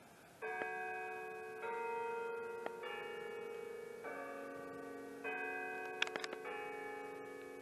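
Digital clock-tower chimes sounding a slow bell melody through loudspeakers, the tune that leads into the noon hour strikes. Six notes, a new one about every second and a quarter, each ringing on until the next. A few sharp clicks about six seconds in.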